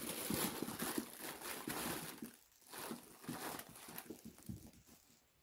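Small dogs, a Yorkie puppy and a Pomchi, scuffling in play on carpet, with rustling as one dog noses into a fleece blanket: irregular short rustles that die down near the end.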